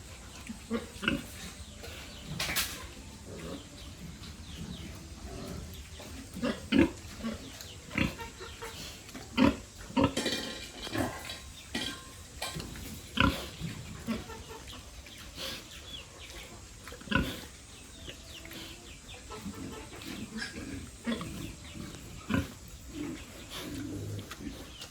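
Pigs grunting: many short calls come one after another, some overlapping, with a busier stretch about ten seconds in.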